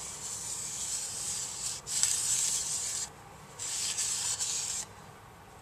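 Cotton rag rubbing against the inside of a cast-iron Grundfos CR10 pump head, wiping the O-ring seat clean of rust and scale before a new O-ring goes in. It comes in three scrubbing stretches, with a short pause about three seconds in.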